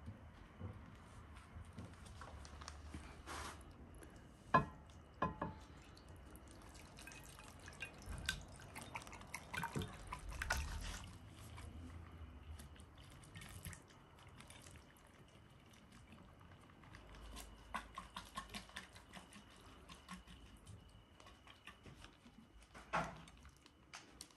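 Water dripping and splashing off a glass jar of cooked chicken as it is lifted out of a pot of water, then broth and chicken pieces pouring and plopping out of the jar onto a plate, with a few sharp clinks and knocks.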